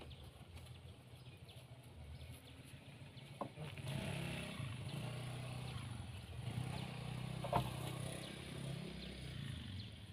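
Soil being loaded by hand into the steel bed of a small homemade dump truck, over a low uneven rumble that grows louder about four seconds in, with two sharp knocks.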